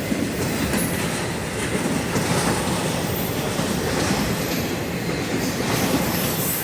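A train rolling past on the rails, its wheels making a steady, continuous rumble.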